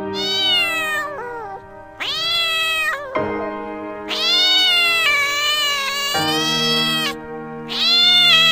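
Domestic cat meowing four times, the third a long drawn-out meow, over background music with steady held notes.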